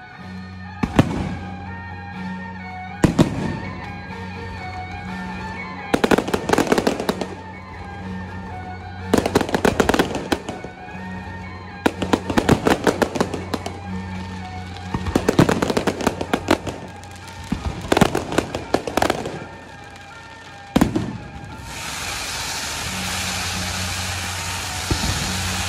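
Aerial fireworks going off in repeated clusters of sharp bangs and crackling every few seconds. Near the end come the steady hiss of ground fountain fireworks spraying sparks.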